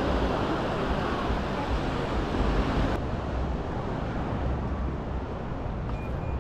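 Surf washing onto a sandy beach with wind buffeting the microphone. About halfway through the sound cuts to a quieter, duller steady wind rumble without the waves.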